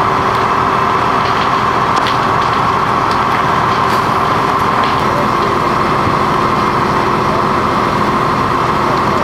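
A fire engine's engine running steadily, with scattered sharp crackles and pops from the burning static caravan.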